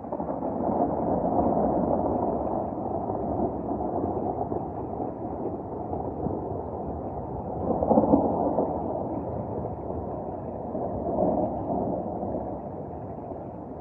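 Rolling thunder from a severe thunderstorm. A long rumble swells up at the start, grows loudest in a crash past the middle and swells again near the end.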